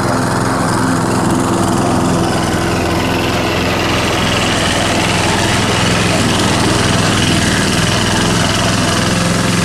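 Pull-start petrol lawn mower engine running steadily.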